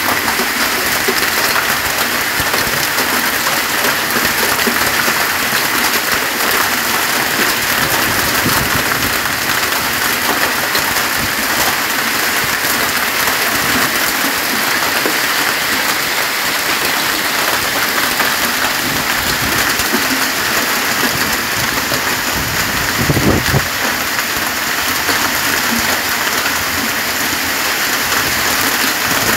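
Hail mixed with heavy rain pelting paving stones: a dense, steady clatter of many small impacts over the hiss of the downpour. There is one brief low thump about three-quarters of the way through.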